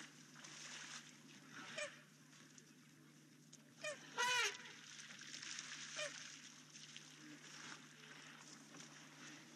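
A few short animal calls, the loudest about four seconds in, each rising and falling in pitch, over a faint steady hum.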